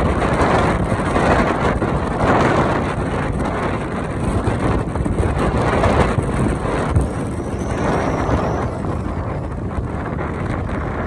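Wind buffeting the microphone of a motorbike in motion: a steady rushing noise that swells and dips, with the sound of the ride underneath.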